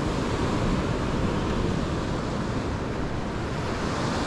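Ocean surf breaking and washing over rocks: a steady rushing noise.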